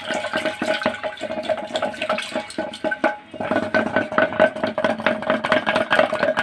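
A wooden hand churner is spun rapidly back and forth between the palms in an aluminium pot of curd, whisking it smooth. It makes a fast, continuous clatter with a steady ringing tone, and breaks off briefly a little after three seconds in.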